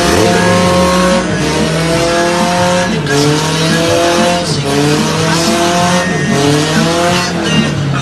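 Honda car's engine revving hard during a burnout, its pitch climbing and dropping back about every second and a half, over the hiss and squeal of spinning tyres.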